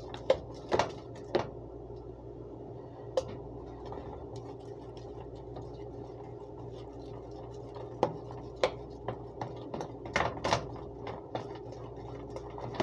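Scattered sharp clicks and knocks of a clear plastic food container being handled, bunched at the start and again from about eight seconds in, over a steady low hum.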